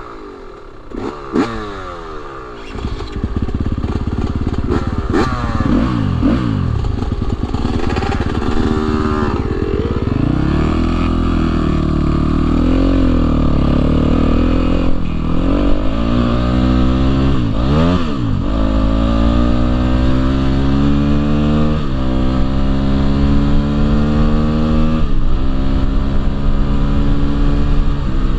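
Husqvarna dirt bike engine under way, accelerating hard. The revs climb and drop back again and again as the rider shifts through the gears, with a brief slowing and pick-up about two-thirds of the way through.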